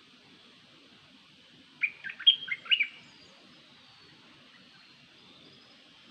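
A small songbird's call, of the bird the Thai call nok dok taeng, as used for a decoy call: one quick phrase of about six sharp chirps, lasting about a second, about two seconds in.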